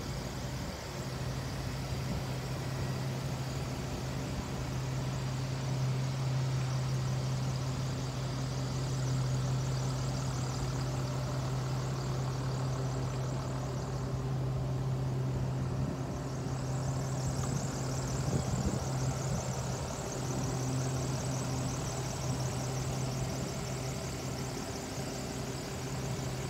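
Engine of a 2008 Chevrolet 3500 Girardin mini school bus idling, a steady low hum that holds an even pitch and level throughout.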